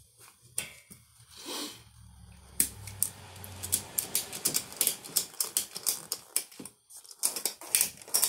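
Ratchet-strap buckle being worked, a run of sharp metal clicks in uneven clusters starting about two and a half seconds in, as the pawl catches tooth by tooth. The strap is cinching a hand-truck tire tight around its tread to pull the bead out toward the rim so the tire will take air.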